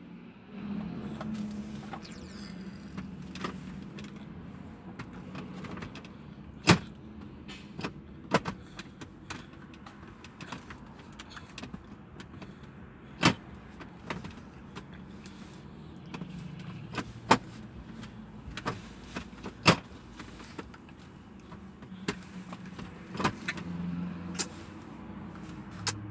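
Inside a car cabin: a steady low engine hum with scattered sharp clicks and knocks, about a dozen of them, unevenly spaced.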